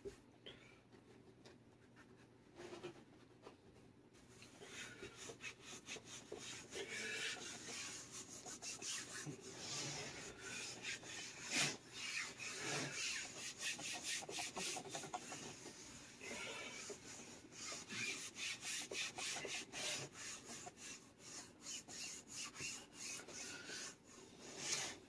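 Hands rubbing and smoothing fabric over a Telecaster body, a dense run of short brushing strokes that begins after a quieter first few seconds. A sharper knock comes about halfway through and another near the end.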